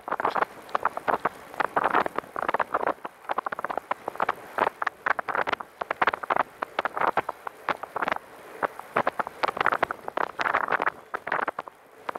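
Catrike 700 recumbent trike rolling fast along a paved trail, with a continual, irregular rattling crackle of short clicks.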